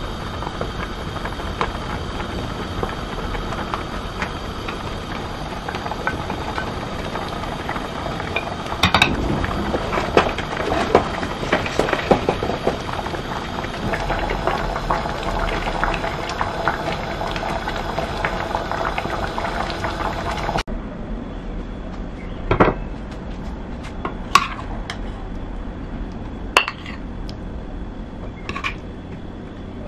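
A pot of tomato and fish stew simmering, with a spoon stirring and knocking against the steel pot several times. After a sudden cut, a metal ladle clinks against the pot and a serving bowl about four times as the stew is served.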